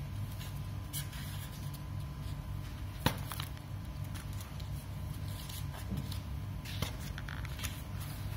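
Heavy pages of a wallpaper sample book being handled and turned: scattered rustles and a sharp click about three seconds in, over a steady low hum.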